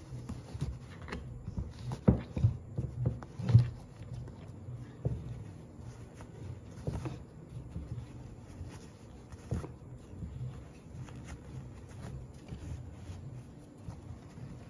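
Hands weaving t-shirt yarn strips through the warp on a nail-frame rug loom: soft, irregular rustling of fabric with light knocks and taps, loudest in a cluster about two to four seconds in.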